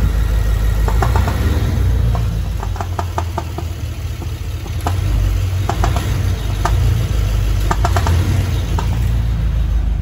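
BMW X6M's 4.4-litre twin-turbo V8 idling with sharp ticking knocks coming through every second or so, a sound just like a rod knock. The knock is the number 4 fuel injector loose in its bore on worn O-ring seals, rocking side to side.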